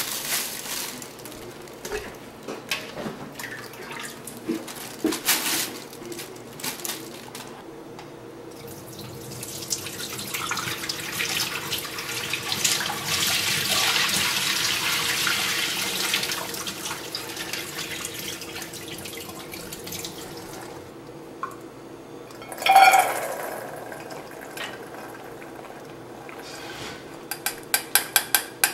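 Water running and splashing in a kitchen sink, heaviest for about ten seconds in the middle, among scattered light clicks and knocks of dishes. A single sharp ringing knock comes about three-quarters of the way through, and a quick run of clinks near the end.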